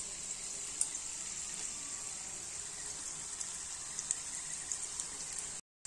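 Gujiyas deep-frying in a pan of lightly heated oil: a steady sizzle with scattered small crackles and pops. The sound cuts out for a moment near the end.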